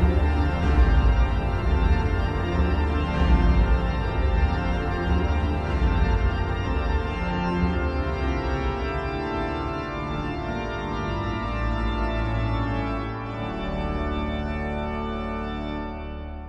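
Background music of sustained chords over a deep bass, growing quieter toward the end.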